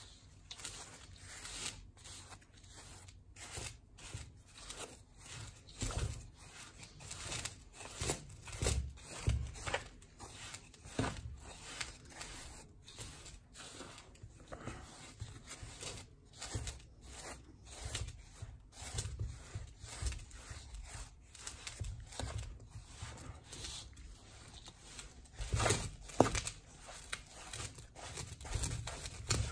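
Damp detergent powder being mixed by hand in a stainless steel bowl: irregular scraping and crunching strokes as the powder is pushed and rubbed against the metal, with a few louder strokes near the end.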